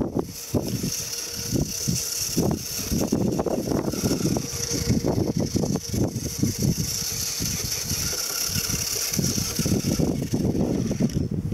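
Electric motor and geared drivetrain of a 1/10-scale RC4WD FJ40 scale crawler running, a steady high whine over irregular clattering as it drives over bumpy hard-packed snow.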